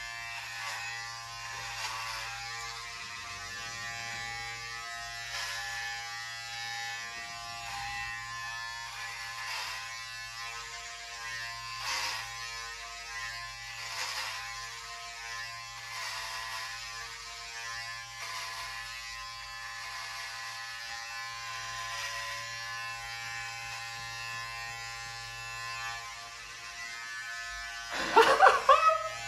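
Electric hair clippers buzzing steadily while cutting hair for a buzz cut, with short louder rasps every second or two. A brief loud burst near the end.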